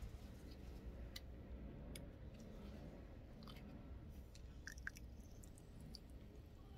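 Near silence over a low steady hum, broken by faint scattered small clicks and ticks of hand work on a small part.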